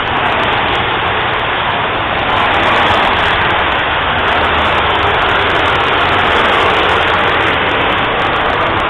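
Steady motorway traffic noise: tyres hissing on a wet road with a low engine rumble from passing lorries and cars, swelling a little twice as vehicles go by.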